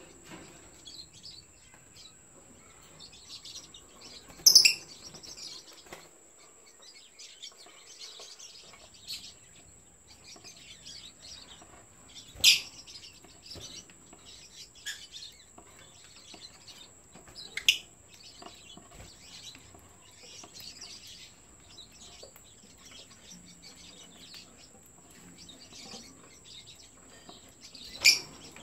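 Yellow lovebirds chirping: soft, scattered twittering throughout, broken four times by a short, loud, sharp call.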